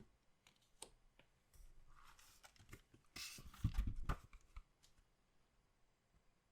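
Hands handling trading-card packaging: a few light clicks, then a few seconds of rustling and crinkling wrapper with a louder tearing stretch near the middle and a couple of soft bumps on the table.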